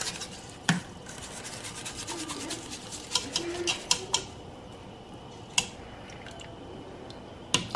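Stainless steel mesh strainer full of rinsed rice knocking and scraping against a cooking pot as the rice is shaken out into the water. There is one sharp click about a second in, then a run of light rapid clicks and rubbing for about three seconds, and one more click later on.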